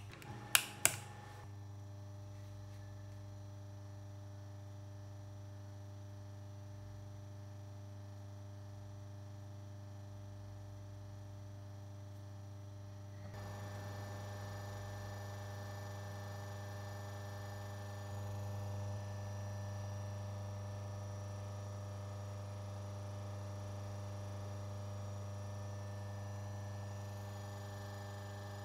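A few sharp clicks as a power-strip switch is pressed, then a washing machine's 230 V capacitor-run motor runs with a steady electrical hum. The hum grows louder and brighter about 13 seconds in.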